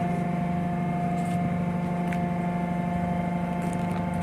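Steady hum of a ship's machinery, running at an even pitch with a few faint clicks over it.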